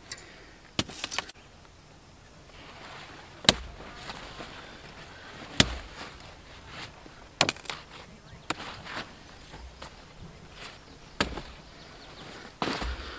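Rhubarb stalks snapping crisply as they are cut with a knife and pulled from the plant: about eight sharp snaps at irregular intervals, with the large leaves rustling in between.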